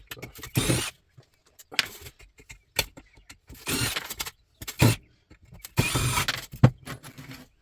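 Metal parts of a ceiling fan clattering and scraping in short, irregular bursts as it is taken apart by hand.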